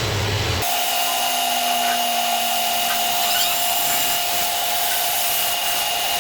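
Lathe turning an electric motor armature: a steady hiss from the cut with a steady high whine, starting abruptly about half a second in.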